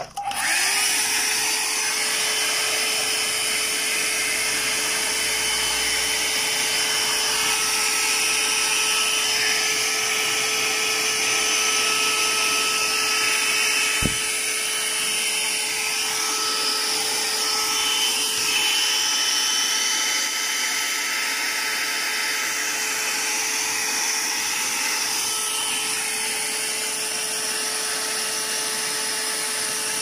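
Handheld electric blower switching on, its motor spinning up in a moment to a steady hum with a rush of air, blowing on the rain-wet wiring and compressor of a refrigerator to dry them. One short knock about 14 seconds in.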